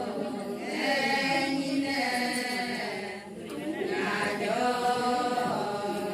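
Ponung chant: a group of voices singing together without instruments, in long held phrases with a short break about three seconds in.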